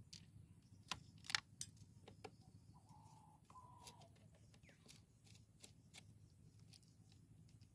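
Near silence with scattered faint clicks and taps, a few sharper ones about a second in: small metal tool clicks as a corroded motorcycle battery terminal screw is undone for cleaning.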